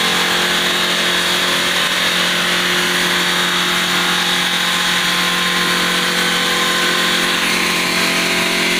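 A 5-axis CNC stone bridge saw running steadily, its diamond blade cutting a stone slab, with a steady hum under a high grinding hiss.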